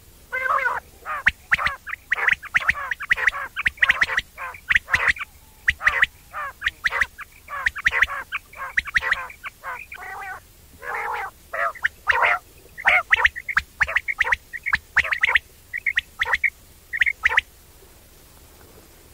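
Quail calling the 'wong wong' night call: a long run of rapid, short nasal notes, irregular in spacing, with a few shorter, higher notes near the end before it stops.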